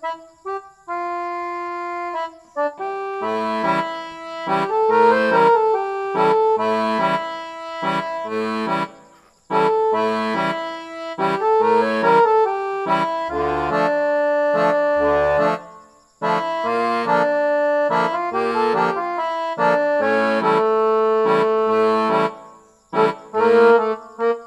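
Instrumental background music: held chords over a bouncing bass line, breaking off briefly a few times.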